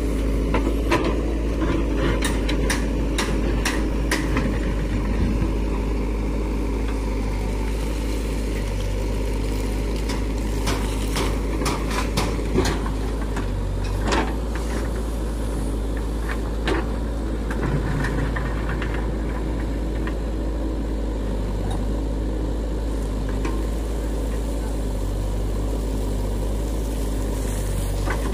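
JCB 3DX backhoe loader's diesel engine running steadily as it digs and loads gravel, with scattered sharp clanks and rattles of the bucket and stones.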